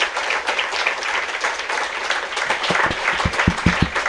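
Audience applauding, a steady patter of many hands clapping, with a few low thumps about three seconds in.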